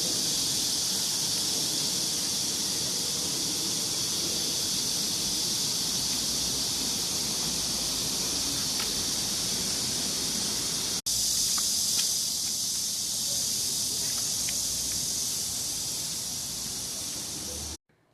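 A steady, high-pitched chorus of insects, cicadas and crickets, shrilling without a break. It cuts out for an instant about eleven seconds in, resumes, and stops abruptly just before the end.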